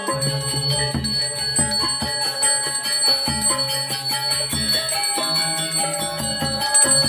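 Balinese gamelan metallophones playing struck, ringing notes in a steady rhythm. Over them a small bell rings without a break, typical of a priest's hand bell (genta) rung during temple prayers.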